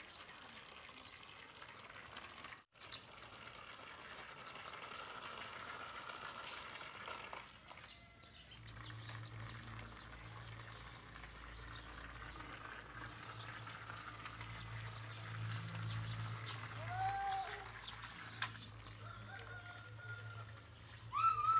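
Faint background hiss with a steady low hum that comes in about a third of the way through. A few short high calls rise and fall near the end.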